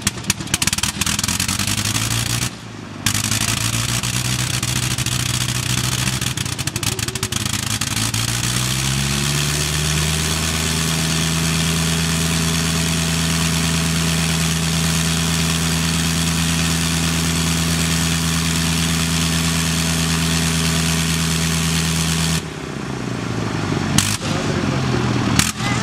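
Avro 504 biplane's rotary engine running on the ground: it fires unevenly at low speed and briefly drops out about two and a half seconds in, then speeds up over a few seconds and holds a steady high run. About three seconds before the end it drops away and slows, firing unevenly again.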